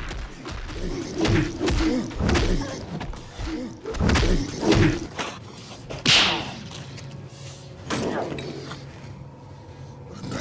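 Thuds and knocks of a scuffle, mixed with short grunts, with a sharp whoosh about six seconds in; it quiets down after about eight seconds.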